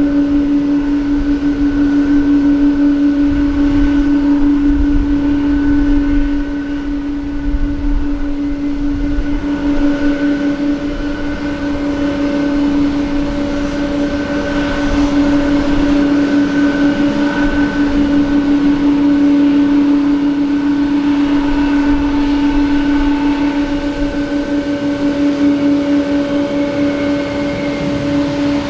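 Jet aircraft engine noise at an airport: a steady droning hum over a low rumble, with a faint rising whine near the end.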